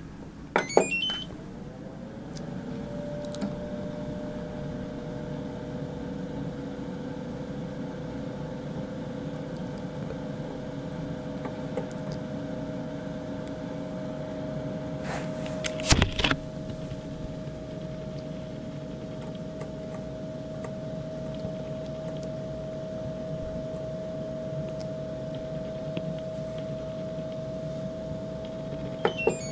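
HAAN KD-3000 food dehydrator switched on with a short run of electronic beeps, its fan then spinning up, the whine rising in pitch over a second or so before settling into a steady hum. Around halfway a loud click with beeps as a knob is worked, and near the end another short run of beeps.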